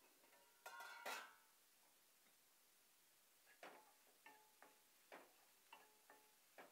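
A glass pan lid with a metal rim clinks and rattles as it is lifted off a metal cooking pan. Then a spoon taps against the pan's metal side about twice a second while the fried egg is stirred, each tap ringing briefly.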